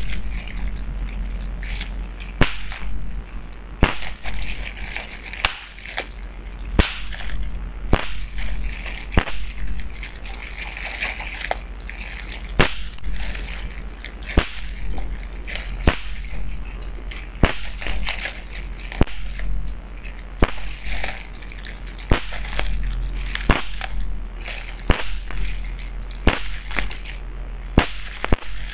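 Bubble wrap being popped by hand, one bubble at a time: sharp pops about every second or so, with the plastic crinkling between them.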